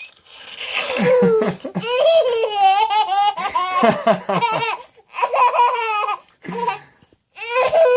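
Baby laughing: high-pitched belly laughs in rapid fluttering pulses, coming in several bouts with short breaks between them.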